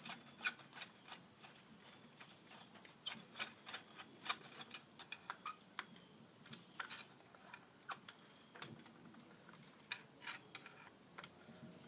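Screwdriver working Phillips-head screws out of a streetlight's metal light socket: irregular small metal clicks and clinks.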